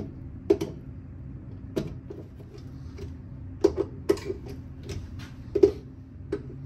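Screwdriver clicking and scraping on the terminal lug screws of a contactor as they are tightened: several sharp clicks at uneven intervals over a steady low hum.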